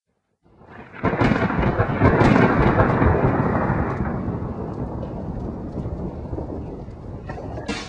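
Thunder-and-rain sound effect: after a brief silence a rumble of thunder swells in, is loudest around two to three seconds in, then slowly fades into steady rain.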